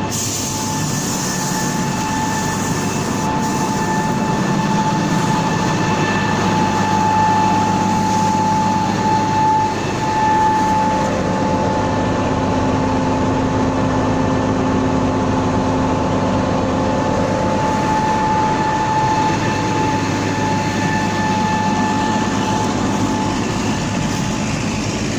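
Combine harvester running steadily, a loud, even machine noise with several whining tones from its drives that come and go.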